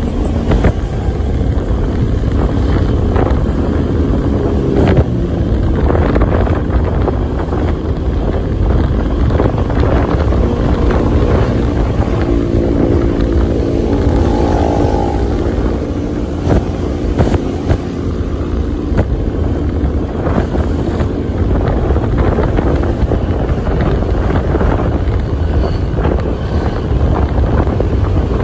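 Loud, steady motor vehicle and road traffic noise with wind on the microphone. An engine tone swells and wavers about halfway through.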